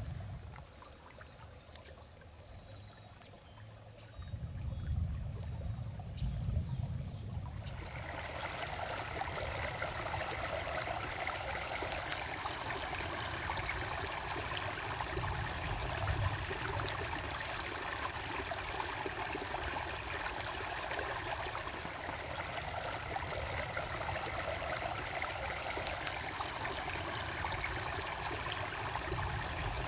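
Low-velocity flash-flood water streaming over a newly built rock gabion check dam: a steady rushing, splashing flow that starts suddenly about eight seconds in. Before that there is only a low rumble.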